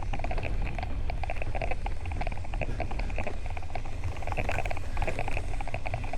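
Wind rumbling on the microphone while riding a bicycle, with a rapid, pulsing chatter in clusters throughout.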